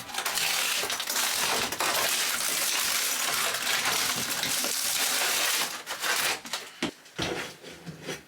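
Caravan material being smashed and broken out by force, a dense crunching and rattling of breaking pieces and falling debris for about six seconds, then a few scattered knocks.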